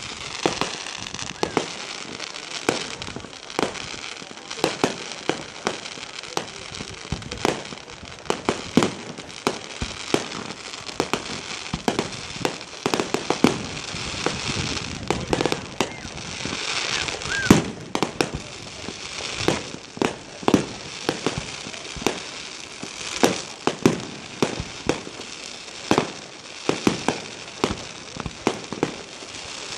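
Fireworks display: a long run of sharp bangs from bursting shells, often several a second, over a constant crackle and hiss. A short whistle comes about halfway through.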